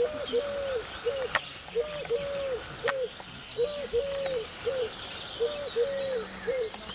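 A dove cooing a three-note phrase, a short note, a long note and a short note, repeated about every two seconds, with small birds chirping faintly behind it.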